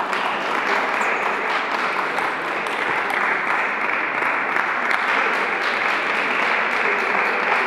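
Crowd of spectators applauding, a steady run of many hands clapping that holds for several seconds.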